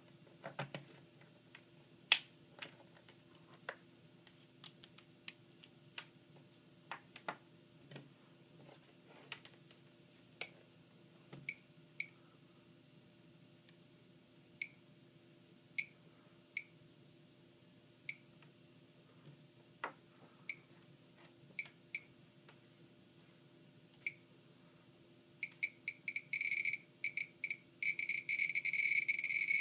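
DIY Geiger counter kit with an SBM-20 probe, chirping once for each detected count. At first there are a few handling clicks, then sparse irregular chirps at background rate. About 25 seconds in, the chirps turn into a rapid near-continuous stream as the probe is held over a radioactive check source.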